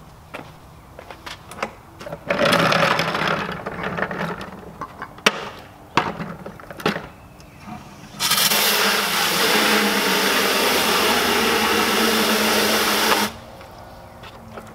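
Water from a garden hose running into a plastic wash bucket: a steady rushing that starts about halfway through and cuts off suddenly when the spigot is shut. Before it, scattered clicks and knocks and a short loud burst of noise.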